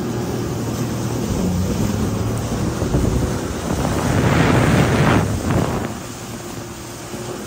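Jet ski engine running at speed, with wind buffeting the microphone and water rushing past the hull. A surge of splashing spray builds about three and a half seconds in and is loudest around four to five seconds, then eases.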